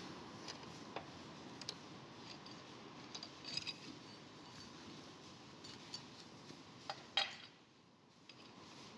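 Rusty adjustable wrench handled on a metal workbench: scattered light metal clinks and scrapes, the loudest about seven seconds in.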